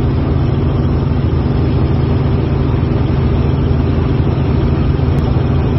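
Light helicopter in cruise flight heard from inside the cabin: a loud, steady drone of engine and rotor with a fast, even flutter.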